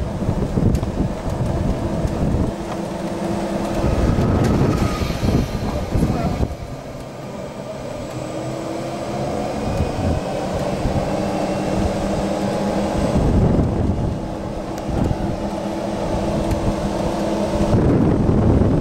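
Wind buffeting the microphone over the low rumble of an electric golf cart rolling along a paved path; the cart's electric drive makes little sound of its own.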